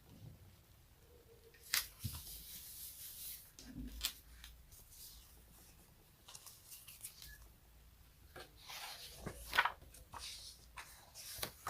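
Close-miked sticky sounds: a tacky surface being pressed and pulled apart, with a few sharp snaps and softer crackling stretches between them.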